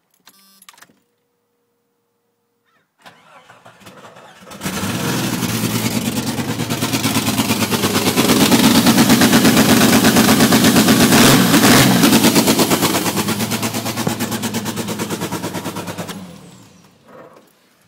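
Jeep Cherokee XJ engine starting and running with its air intake removed, loud and pulsing for about eleven seconds, then cutting off.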